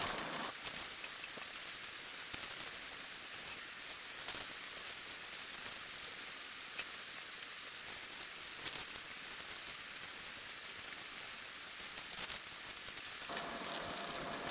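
A steady high hiss with a faint, steady high whine through it and a few light clicks. It starts abruptly about half a second in and cuts off abruptly near the end.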